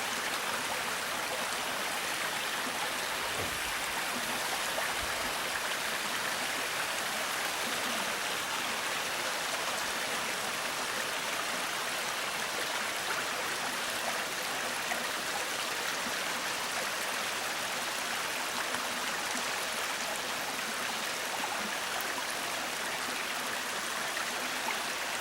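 Small waterfall on a rocky creek, water rushing steadily over and down flat rock ledges in an even, unbroken flow.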